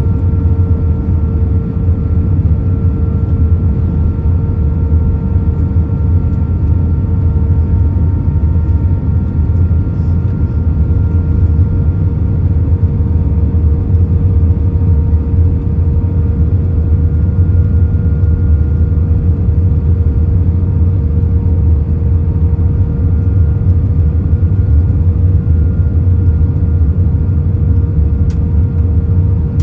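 Cabin noise inside a British Airways Airbus A319 on approach with flaps extended: a steady, loud low rumble of engines and airflow, with a few faint steady hum tones.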